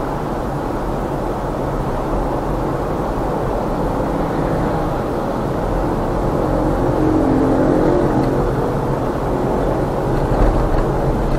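Car driving in traffic: steady engine and tyre noise, with an engine hum swelling for a few seconds past the middle and a short thump near the end.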